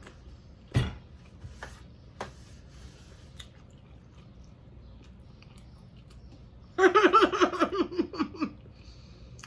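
Close-up eating sounds of a fried fish sandwich being chewed, with a sharp click near the start and a few faint ticks. Near the end, a loud pulsing, wavering vocal sound from the eater lasts about a second and a half.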